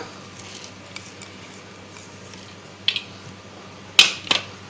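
Three short knocks of a plate against a steel mixing bowl as soaked chana dal is tipped in: one about three seconds in, then two close together near the end, the first of these the loudest. A faint steady hum lies underneath.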